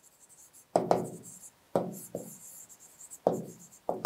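Stylus writing on an interactive whiteboard screen: about six irregular taps and knocks of the pen tip on the glass, with faint scratching between them.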